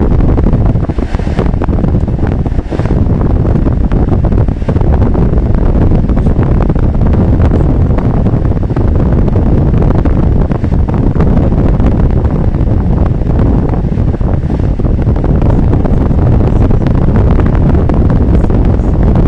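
Steady low rumble of engine and road noise inside a moving car's cabin, picked up by a dashcam's microphone.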